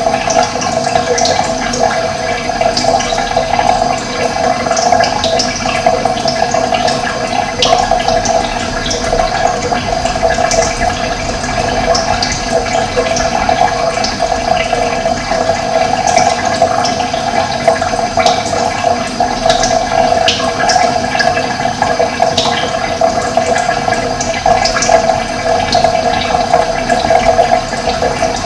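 Running water flowing steadily, with short, high bird chirps scattered over it.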